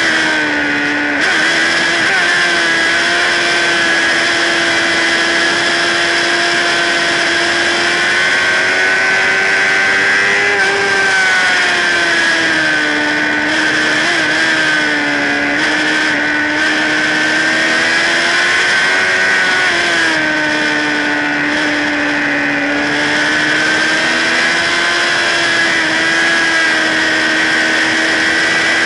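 Sport motorcycle engine running hard at high revs, heard from a camera mounted on the bike with wind rush. The engine note holds fairly steady, dipping and climbing back a few times.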